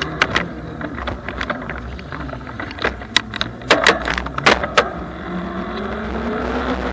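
Bafang BBSHD e-bike mid-drive motor whining under steady riding noise; the whine rises steadily in pitch over the last couple of seconds as the bike picks up speed. Before that, a run of sharp clicks and rattles comes from the bike, loudest about three to five seconds in.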